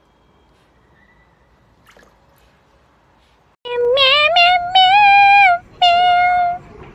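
A high voice singing long, steady held notes, starting loud after a few seconds of near quiet.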